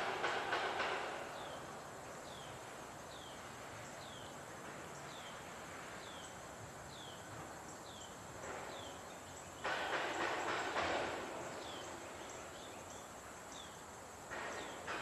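Outdoor insect buzzing, a rapid pulsing drone that comes in surges: it fades away in the first second, starts suddenly a little past the middle, fades again and swells back near the end. Through the lull a bird gives a short downward chirp about once a second.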